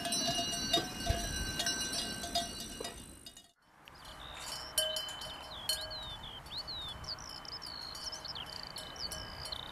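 Bells on a grazing flock of sheep clanking and ringing, fading out about three and a half seconds in. Then birds chirping over a steady high insect tone.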